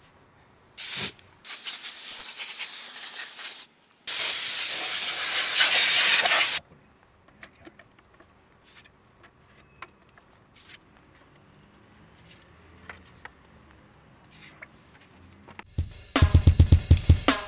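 Compressed-air blow gun hissing in two long blasts of about two seconds each, blowing sanding dust and debris off an alloy wheel before painting. Background music with a drum beat starts near the end.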